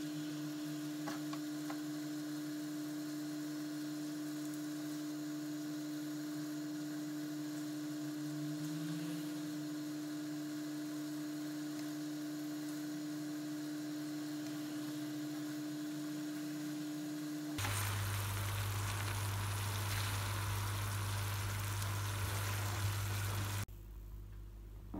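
Pasta frying in a pan on a gas burner, faintly sizzling under a steady hum. About eighteen seconds in the sound cuts abruptly to a louder, lower hum, then drops quieter near the end.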